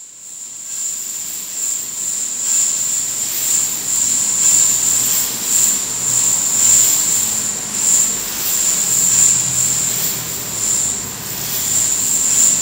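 Dense, continuous jingling of many small nickel-plated bells and metal rings on rotating wall-mounted bar sculptures turning on ball bearings. The jingle swells and ebbs every second or so.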